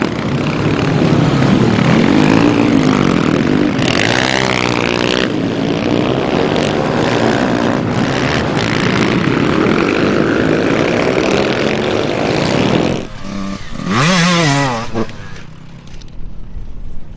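Dirt bike engines running and revving, the pitch rising and falling with the throttle. There is a sharp high rev about four seconds in and another near the end.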